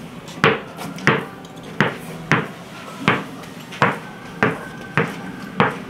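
A basketball being dribbled on a carpeted floor: a steady run of bounces at about three every two seconds, each with a short ringing ping from the ball.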